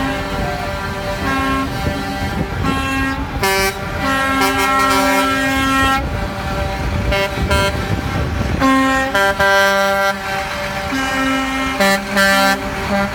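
Concrete mixer trucks rolling past slowly with diesel engines running, their horns sounding again and again in short and long blasts at several different pitches, sometimes overlapping.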